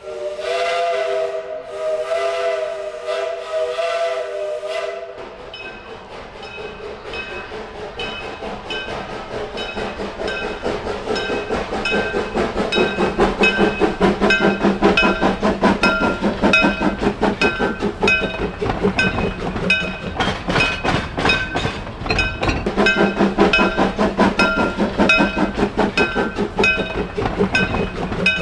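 Steam whistle of a 1910 Vulcan 0-4-0 steam locomotive, held for about five seconds. Then the locomotive's rhythmic exhaust beats grow louder as it approaches hauling the train, with a bell ringing repeatedly and the wheels clicking over the rails.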